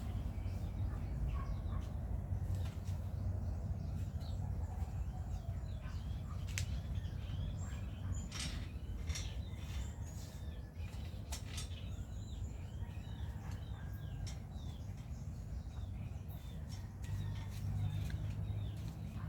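Small birds chirping repeatedly over a steady low hum, with scattered light clicks and taps.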